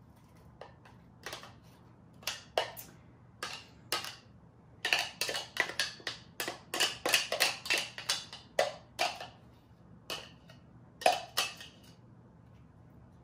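A spoon scraping and knocking against the inside of a clear manual food processor bowl as chunky pico de gallo is scooped out: a run of quick clicks and scrapes, thickest in the middle, with one sharp knock near the end.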